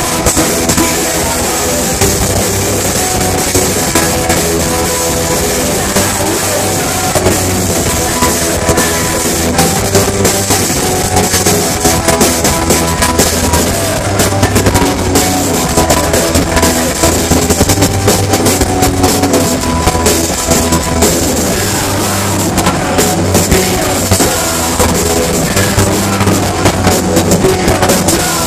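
Live rock band playing loud through the PA: electric guitars, bass and a pounding drum kit, heard from the front of the crowd. The drum hits grow busier about a third of the way in.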